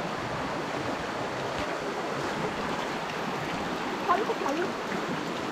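Stream water rushing steadily, with a faint voice briefly about four seconds in.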